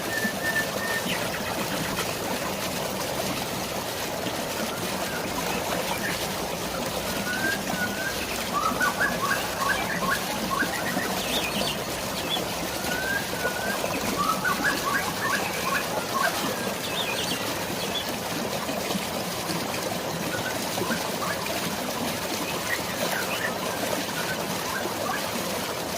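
A steady rush of rain and flowing water, with birds chirping over it in runs of quick repeated notes, two of them clearest about a third of the way in and again just past the middle.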